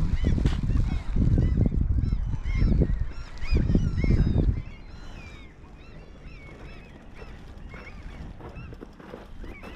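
A flock of birds calling over and over in short, overlapping calls. A heavy low wind rumble on the microphone drops away about halfway through, leaving the calls fainter but still going.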